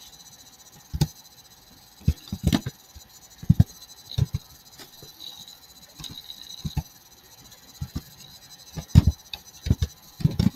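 Computer keyboard keys pressed slowly and irregularly, a dozen or so separate clicks and knocks as a few letters are typed.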